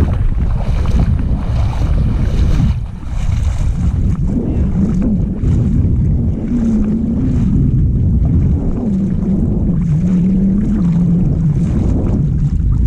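Wind buffeting the microphone, a heavy low rumble, with a low wavering drone rising and falling from about four seconds in.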